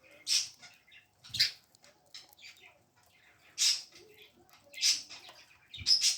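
Baby budgerigar chicks calling: about five loud, short, raspy hissing calls spaced irregularly, with fainter chirping between them.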